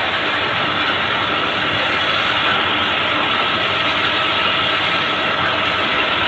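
Metal-working lathe running while a twist drill in the tailstock bores into the spinning workpiece: a steady mechanical noise with a thin, steady high whine.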